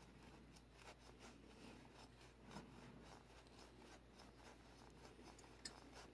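Near silence, with faint soft rubs now and then of a thick leather glove stroking a cat's head and fur.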